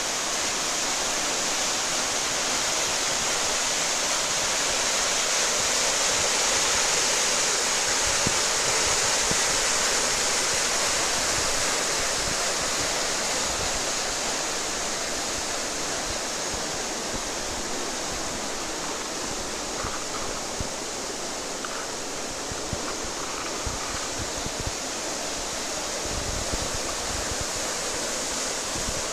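Fast water rushing steadily through irrigation canals and spilling over the sluice gates. It swells slightly a few seconds in, then eases a little.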